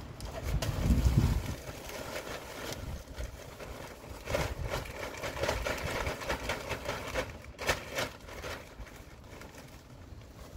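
Bagged potting mix poured out of a plastic bag onto a soil pile, the soil sliding and the bag rustling as it is shaken out. Wind buffets the microphone in a low rumble about a second in.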